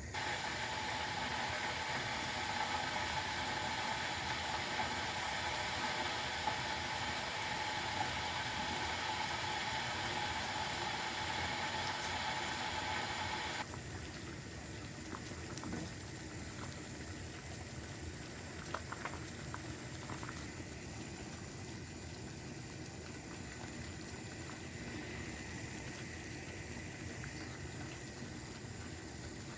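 Liquid boiling in a cooking pot, a steady bubbling hiss. A little before halfway it drops suddenly to a quieter simmer with a few light clicks.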